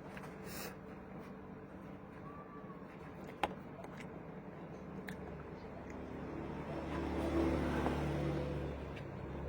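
A motor vehicle passing, its low engine sound rising in the second half and fading again just before the end, over quiet room background with a single sharp click about three and a half seconds in.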